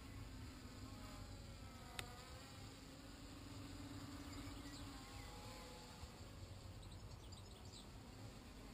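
Faint, insect-like buzz of a Flyduino Nanoquad's small motors and propellers overhead, its pitch drifting up and down with the throttle. A single sharp click about two seconds in.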